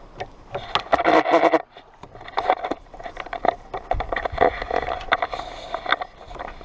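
Old vinyl soft-top fabric being pulled and peeled off a convertible roof frame: rustling and creaking in bursts, with scattered clicks.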